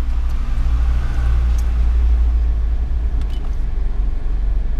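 Steady low rumble of the Perodua Axia's engine idling, heard inside the cabin, with a few faint clicks.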